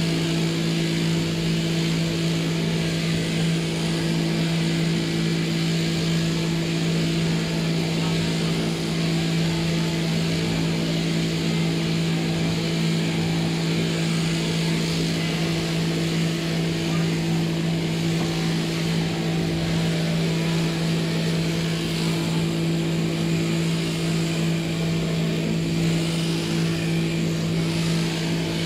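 Electric sheep-shearing machine running: a steady hum with an even hiss over it, unchanging in pitch and level.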